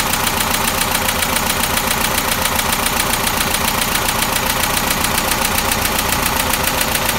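International Harvester 152 slant-four engine idling steadily while its ignition timing is adjusted by turning the distributor.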